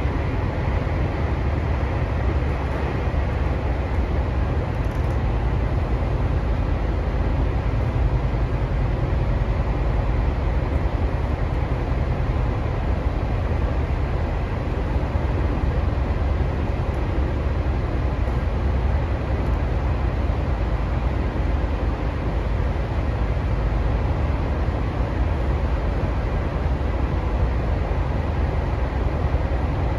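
Interior running sound of a Tokyu 3020 series electric train with Mitsubishi full-SiC inverters, cruising at a steady speed: a constant heavy rumble of wheels on rail with faint steady tones above it.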